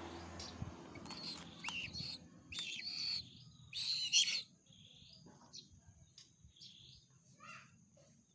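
Young white-bellied sea eagle giving high-pitched food-begging calls: a quick run of chirping cries, loudest about four seconds in, then fainter, shorter calls.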